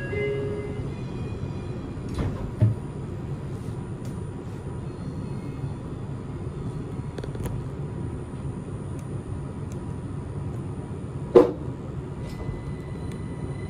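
Steady low hum and running noise inside a Linimo 100-series maglev train car, with brief steady tones at the very start and two sharp knocks, the louder one near the end.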